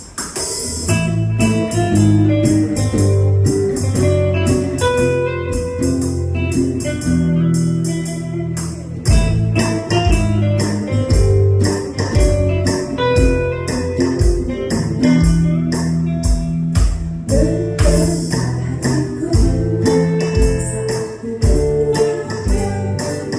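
Pop band music led by guitars, electric and acoustic, over bass and electronic drums with a steady run of hi-hat ticks.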